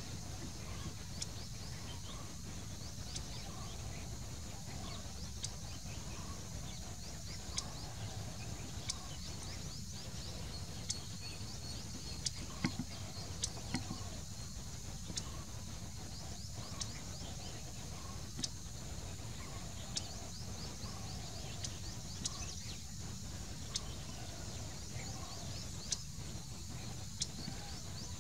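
Outdoor ambience: a steady low rumble under a faint band of high, chirping calls, with sharp short ticks every second or two.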